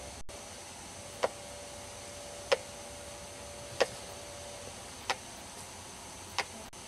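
Sharp, evenly spaced ticks, about one every 1.3 seconds, over a faint steady hiss.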